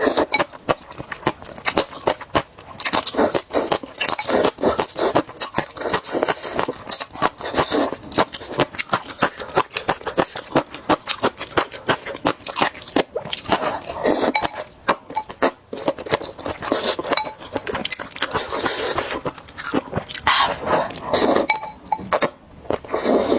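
A person slurping noodles and broth and chewing with wet mouth sounds. Several longer slurps stand out between quick, irregular chewing clicks.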